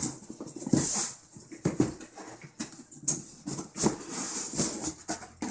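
Cardboard box being handled and opened: a run of irregular scraping and rustling noises with a few light knocks as cardboard slides against cardboard.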